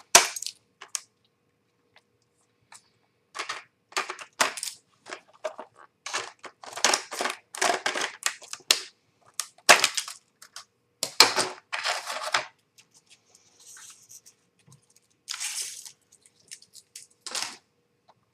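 Hard plastic blister packaging being worked open by hand: repeated short bursts of plastic crackling and tearing with brief pauses between them, and a few fainter bursts near the end.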